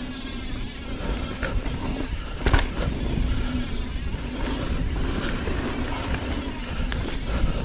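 Mountain bike riding down a dirt singletrack, heard from a GoPro on the rider: tyres rolling over dirt and leaves, with a low wind rumble on the microphone. The bike rattles over bumps, with a sharp clunk about two and a half seconds in.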